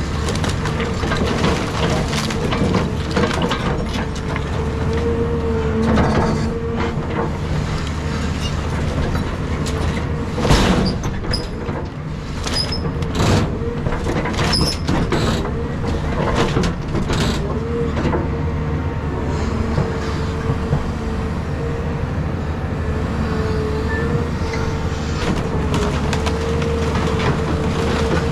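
Caterpillar 323 excavator's diesel engine running steadily under load with a whine that wavers in pitch, as the machine tears into wooden house framing; a run of sharp cracks and knocks of splintering wood comes near the middle.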